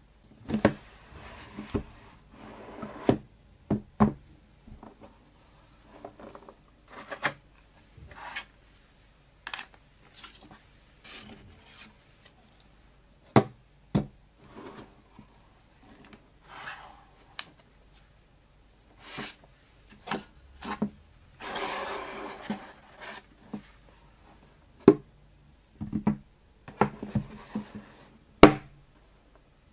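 Cotton-gloved hands handling and opening a rigid cardboard Asus ROG Phone 5S Pro box: soft rubbing and sliding on the box, broken by irregular taps and knocks as its halves are opened and set down. A longer sliding rub comes about two-thirds of the way through, and the sharpest knocks come near the middle and near the end.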